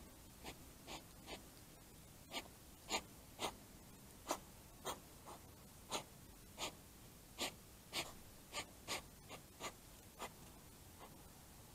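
Two hedgehogs at close quarters making a faint string of about twenty short, sharp sounds at irregular intervals of roughly half a second.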